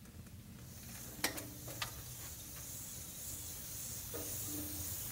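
A wheeled cart rolling across the floor with a low rumble, under the hiss of chalk scraping along a chalkboard as it is drawn up and down in a wave. A couple of sharp clicks come about a second in.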